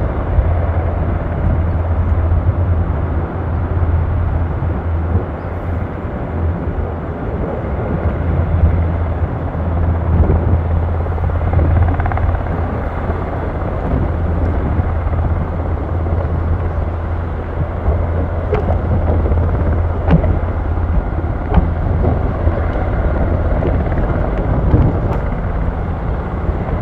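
KAI Surion fire helicopter's rotor and turbine engines running with a steady low drone that swells and eases.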